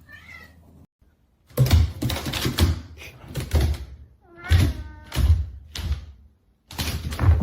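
Clusters of knocks and thumps in quick groups, with a brief high cry in the middle, likely a cat meowing.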